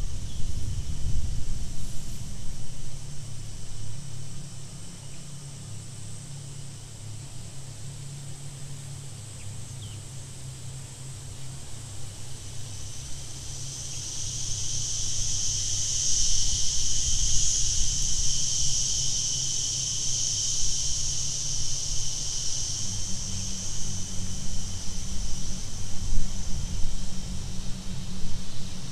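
A chorus of insects in the bush, a high shrill drone that swells up about halfway through and fades a few seconds later, over a steady low hum and wind rumble.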